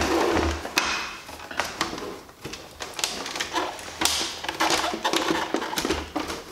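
Hard plastic side panel of a coffee machine being handled and fitted onto the machine's plastic frame: a run of irregular clacks, knocks and scrapes as the panel's clips are worked into place.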